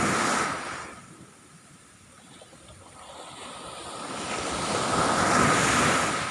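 Large ocean waves breaking on the beach at high tide, in two surges: one crashing right at the start and dying away within a second, then a second building slowly from about three seconds in and breaking near the end.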